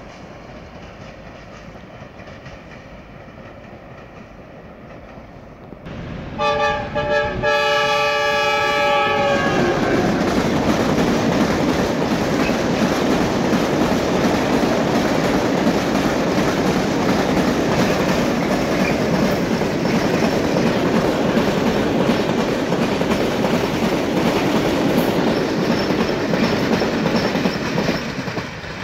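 A distant freight train runs faintly. About six seconds in, a train horn sounds a chord of several tones for about three seconds. Then a long train of freight hopper wagons rolls past close by, its wheels clattering steadily on the rails.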